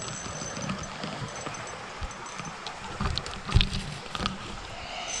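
Leafy branches rustling and scraping against the camera as someone pushes through brush, with a few knocks and crackles about three to four seconds in.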